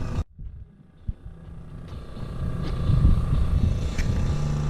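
Low rumbling noise that grows louder about two seconds in, with a faint steady hum and a single short click about a second in.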